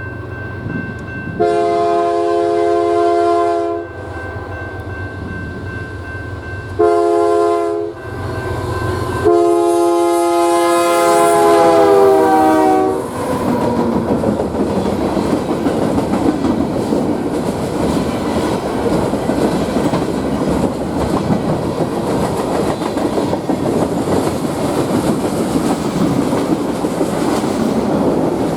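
Freight train diesel locomotive sounding its air horn in three blasts, long, short, then long, the chord sliding down in pitch at the end of the last blast as the locomotive goes by. Then the train's cars roll past with a steady rumble and clickety-clack of wheels on rail joints.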